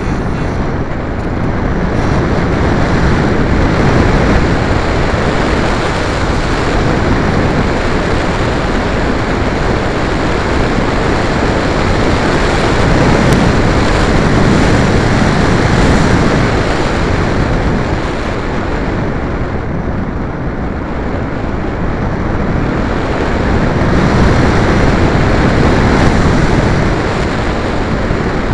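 Airflow rushing over the small microphone of an onboard camera riding on an RC electric glider in flight: a loud, steady, rough noise that swells and eases every few seconds.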